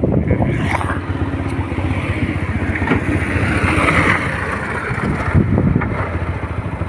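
Motorcycle engine running steadily at low revs close by, with a backhoe loader driving past about four seconds in.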